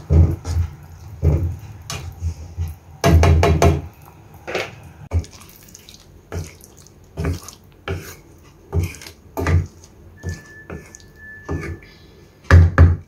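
A spatula stirring chicken liver and gizzards in a thick coconut-milk sauce in a nonstick frying pan: irregular scrapes and knocks against the pan, with wet sloshing from the sauce. The loudest strokes come a few seconds in and again near the end.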